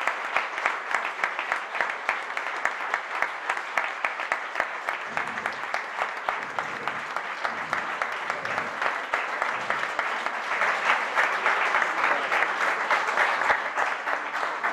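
A roomful of people applauding with sustained clapping that swells a little louder near the end.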